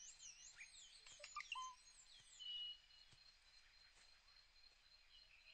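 Faint natural ambience: birds chirping and whistling in quick rising and falling notes through the first two and a half seconds or so, then only now and then, over a steady high insect drone.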